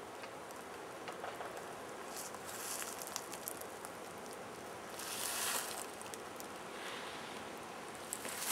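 Steady outdoor hiss with brief rustles and faint scattered crackles; the loudest rustle comes about five seconds in.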